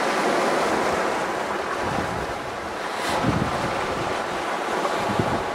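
Sea waves breaking and washing over a rocky shore in a steady rush, with wind gusting on the microphone now and then.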